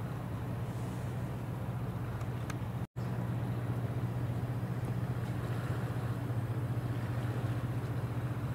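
Tugboat Kaita Maru's diesel engines running underway, a steady low drone, with a brief total dropout about three seconds in.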